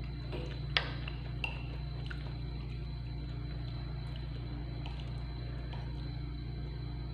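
Metal spoon clinking and scraping against a ceramic plate while scooping rice and vegetables, with one sharp clink just under a second in and a softer one shortly after, over a steady low hum.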